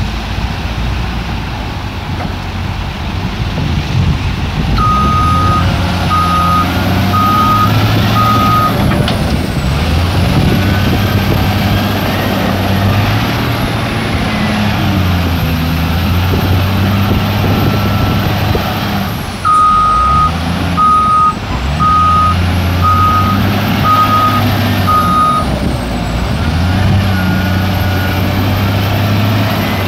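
Caterpillar 966H wheel loader's diesel engine revving up and down through its digging and lifting cycles, with a high whine that rises and falls with the revs. Its reversing alarm sounds twice in runs of about six beeps: a few seconds in and again about two-thirds of the way through.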